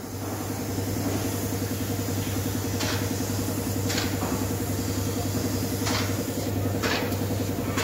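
Air compressor running steadily with a fast, even pulsing, feeding a paint spray gun that gives four short hisses as it sprays the car body.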